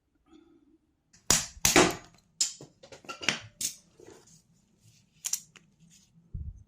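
A series of sharp clicks and knocks, the loudest cluster between one and two seconds in and a few more after, from hard parts of a disassembled evap canister purge valve being handled and knocked together.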